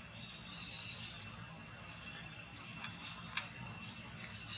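Steady high-pitched insect drone, with a loud high screech lasting under a second near the start and two sharp clicks later on.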